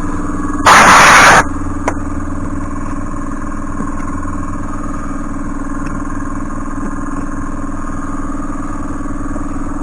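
A steady mechanical hum, with a short loud hiss lasting under a second about a second in.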